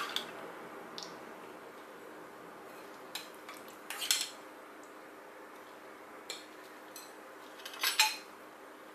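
Spoons clinking against small ceramic sauce bowls: a ceramic spoon in the green sauce, then a metal spoon in the red chili sauce, as a handful of separate clinks, the loudest near the end.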